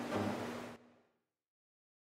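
Hubbard harpsichord playing its last notes, with a louder low chord struck just after the start, then the sound cuts off abruptly under a second in, leaving silence.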